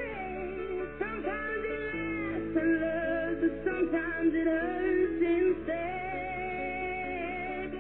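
A song with singing over guitar, playing from a portable CD/radio boombox tuned to a radio station.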